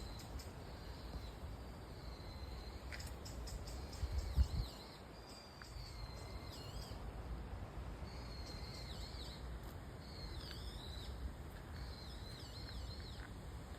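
Small songbirds calling: short, wavering chirps and quick runs of high ticks, busiest in the second half, over a steady low rumble. A brief low bump a little over four seconds in.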